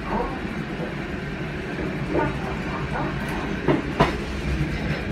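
Fukui Railway 200-series tram running along street track, heard from inside its rear cab: a steady low running hum, with a couple of sharp clicks from the wheels about four seconds in.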